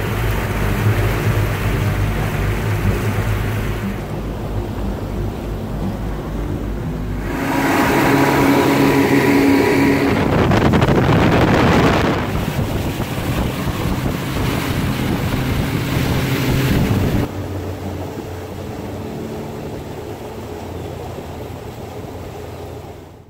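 Twin Honda 150 four-stroke outboard motors running at speed, a steady engine drone with water rushing past the hull and wind buffeting the microphone. The sound jumps abruptly in level a few times.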